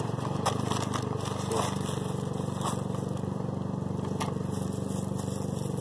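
A motor running steadily with an even low hum, with a few faint clicks over it.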